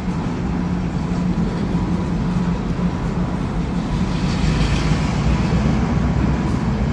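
Steady running noise of a vehicle: a constant low hum with a faint steady whine above it.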